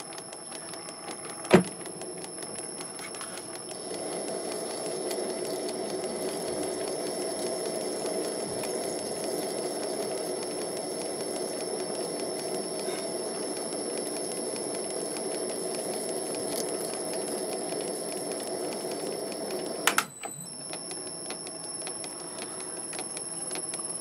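MN-80 lathe running under power while cutting an M16x1 thread on the end of a tube: a steady mechanical hum with a faint high whine, getting louder a few seconds in and dropping back about twenty seconds in. A sharp click about a second and a half in and another where the hum drops.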